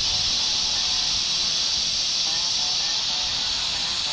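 Kettle on a wood fire at the boil, steam hissing steadily out of it.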